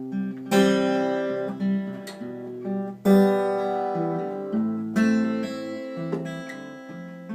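Acoustic guitar playing an instrumental intro: chords struck every two seconds or so and left to ring.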